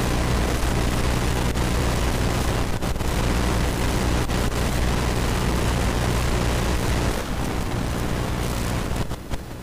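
Steady rumbling noise with a low hum underneath, dipping briefly near the end.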